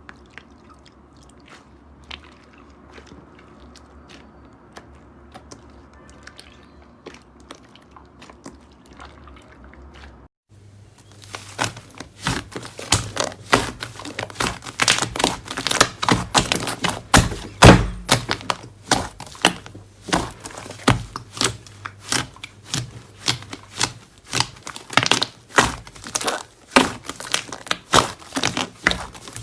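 Slime being handled: faint scattered clicks at first, then, after a sudden change about ten seconds in, loud rapid clicking and popping, several pops a second, as the slime is pressed and squeezed.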